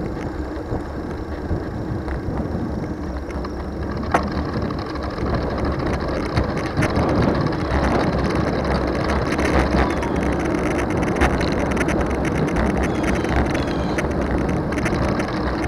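2020 Trek Dual Sport 4 bicycle being ridden: a steady rolling noise of tyres and wind that gets gradually louder, with two sharp clicks, about four seconds and about eleven seconds in.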